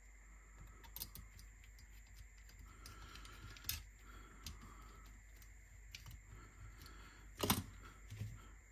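Light, scattered clicks and taps of small parts and tools being handled while a cassette deck's tape transport mechanism is worked on by hand, with one sharper knock about seven and a half seconds in.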